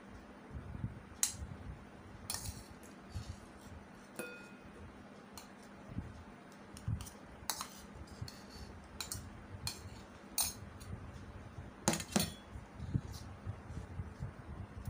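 Steel spoon clinking and scraping against stainless-steel bowls and plates as food is served and eaten, in scattered sharp clinks, with a short metallic ring about four seconds in and a quick run of clinks near twelve seconds.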